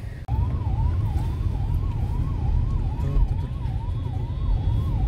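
Electronic siren of an emergency vehicle, sweeping quickly up and down about two and a half times a second, over a steady low rumble of road traffic.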